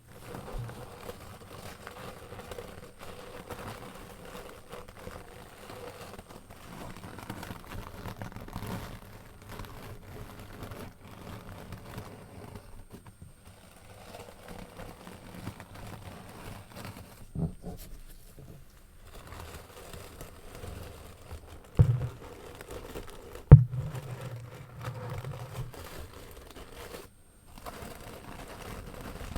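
Close-up crinkling and scratching from an object being handled and rubbed, with two sharp knocks about 22 and 23.5 seconds in.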